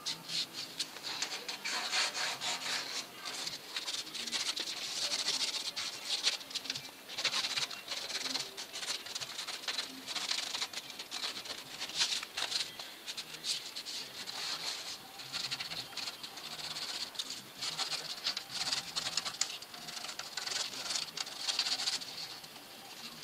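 A pen tracing a cardboard template onto sheet steel, scratching and rubbing across the metal in many short, uneven strokes, with the cardboard and the steel sheet sliding and shifting on the steel workbench.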